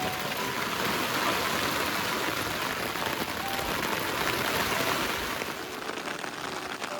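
Heavy downpour of rain pouring steadily, heaviest in the middle and easing slightly near the end.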